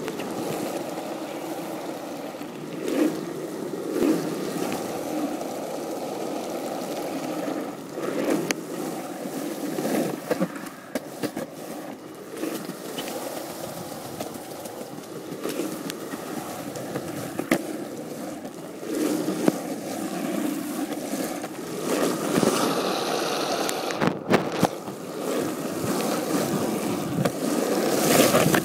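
Skateboard wheels rolling steadily over pavement, a continuous rumble broken by occasional sharp clicks and knocks.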